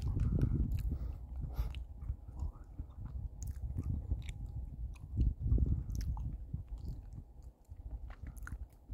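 Wind buffeting the microphone: an uneven low rumble that swells and eases, with scattered crackles and clicks, dropping off briefly near the end.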